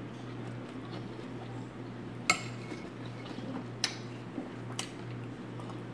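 Quiet eating sounds from someone eating by hand off a plastic plate: three short, sharp clicks spread through the second half, over a steady low hum.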